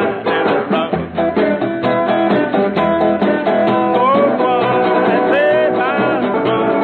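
Hollow-body archtop guitar strummed in quick jazz chords, with a man's voice sliding up and down in wordless singing over it. The sound is thin and dull at the top, as in old television audio.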